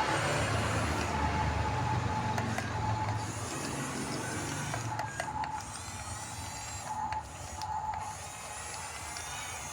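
RC bulldozer's small electric drive motors and gearbox whining as the model runs, the whine starting and stopping several times, with a low scraping rumble that eases off about halfway through and a few sharp clicks.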